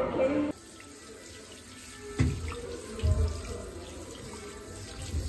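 Handheld shower head spraying water onto bare feet on a tiled floor: a steady hiss of running water. A few low dull thumps fall about two and three seconds in.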